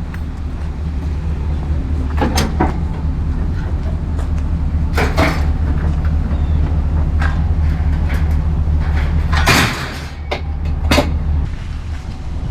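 Vehicle engine running with a steady low rumble, with several sharp clunks and bangs, like doors or metal being handled, over the top.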